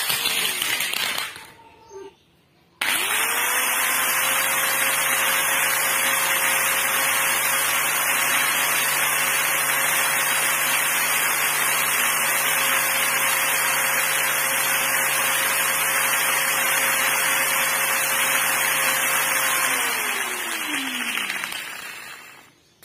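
Angle grinder motor: a short run fades out in the first second or so, then the motor starts up about three seconds in with a quick rising whine. It runs at a steady high speed, then is switched off near the end and winds down in a falling whine.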